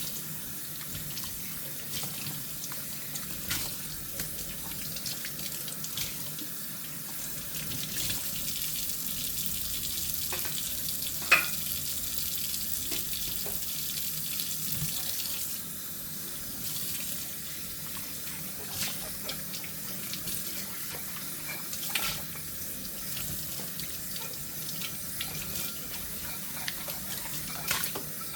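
Kitchen tap running into a sink while dishes are washed by hand, with scattered light clinks of dishware. The water runs louder for a stretch in the middle, and about eleven seconds in one dish strikes another with a sharp, ringing clink.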